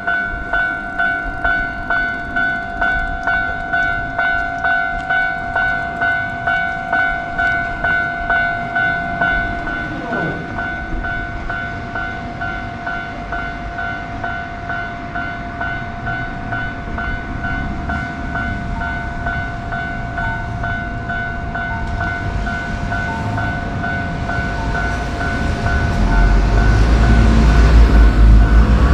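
Japanese railroad crossing warning bell ringing in a steady rhythm of about two strikes a second. A train comes through near the end, its rumble building and becoming the loudest sound.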